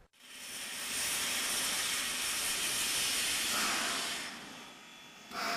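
Steam locomotive letting off steam: a loud hiss that builds over about a second, holds steady, then fades about four seconds in, followed by a second, shorter hiss near the end.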